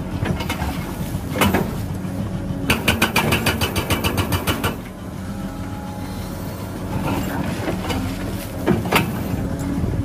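Cat tracked excavator's diesel engine running steadily while its hydraulic rock breaker hammers into rock: a fast run of strikes, about seven or eight a second, for some two seconds near the middle, with a few single knocks before and after.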